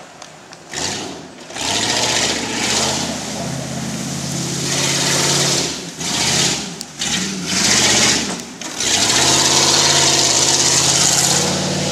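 Off-road SUV's engine revving up and easing off repeatedly under load, the pitch rising and falling with a few short breaks. It is loudest and most sustained near the end.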